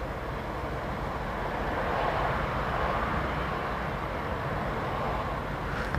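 Steady traffic noise from vehicles idling and creeping in a city traffic jam, heard from inside a car.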